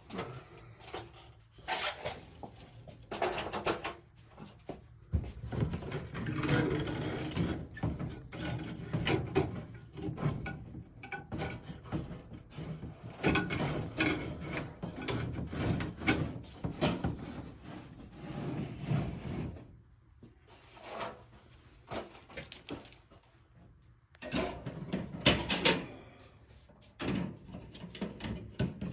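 Irregular knocks, clicks and rustling from hands-on work on a ceiling light fixture, busiest in the middle, with a quiet pause and then a few sharp knocks near the end.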